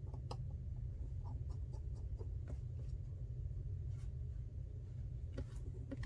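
Faint clicks and light scraping of small repair tools and parts being handled on a phone, over a steady low hum.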